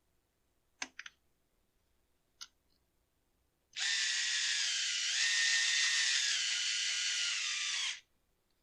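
A few light clicks, then a small electric drill/driver runs for about four seconds with a steady whine that dips slightly in pitch as it loads up, driving in the bolts of the brush cutter's air filter holder.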